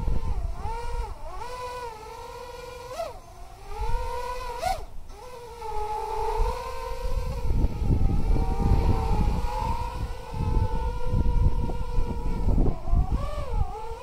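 Racing quadcopter's brushless motors (2600 kV) and propellers whining, the pitch wavering up and down as the throttle changes, over a low gusty rumble of air on the microphone. The motors run quieter for a few seconds early on, then pick up again.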